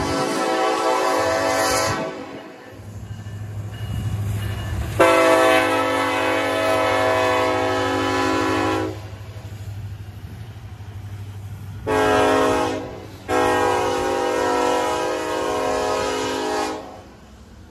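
BNSF freight diesel locomotive's multi-chime air horn: a blast ending about two seconds in, then a long, a short and a long blast, the grade-crossing signal. Under the horn, the locomotives' diesel engines rumble steadily as the loaded coal train passes.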